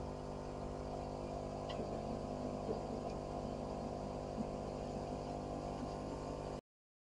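Maddox 12-volt portable air compressor running steadily, a hum with a fast even pulse, pumping air through its hose and quick-connect chuck into a tire. The sound cuts off suddenly near the end.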